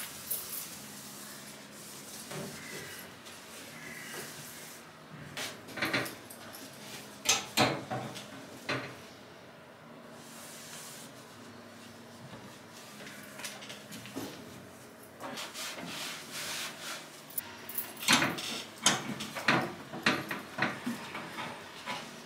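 Kitchen handling sounds: scattered knocks, clicks and clatters, like cupboard doors, drawers and objects being moved and set down. They come in two busier spells, about five to nine seconds in and again near the end, with quieter rustling between.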